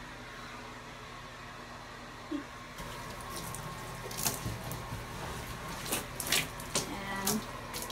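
Wet scrubbing sponge rubbing over a plastic dresser panel, a series of short uneven scrapes starting about three seconds in.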